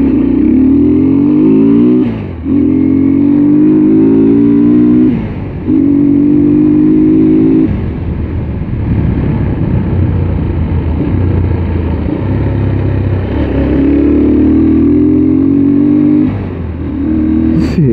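Motorcycle engine pulling away and accelerating: the pitch rises in three pulls, each cut by a short dip as it shifts up a gear. It then runs steady at speed for several seconds and rises once more near the end.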